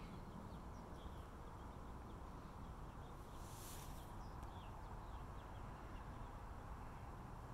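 Quiet outdoor ambience: a steady low background hum with faint, scattered bird chirps, and a brief soft rustle a little after three seconds in.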